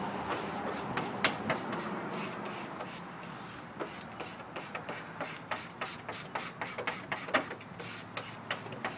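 A vinyl window sticker being laid onto glass: irregular crackling and sharp ticks from its backing paper being peeled and the sticker being pressed down. The crackles are sparse at first and come several a second from about four seconds in, over a steady background hiss.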